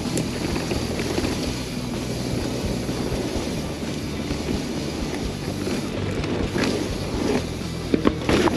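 Wind rushing over the microphone and a mountain bike's tyres rolling fast over a dirt trail, a steady noise with a few sharp knocks near the end.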